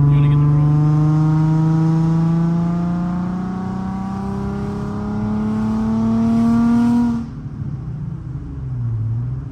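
Infiniti G35 coupe's 3.5-litre V6 pulling under acceleration, its note rising steadily in pitch for about seven seconds before it cuts back sharply and goes quieter.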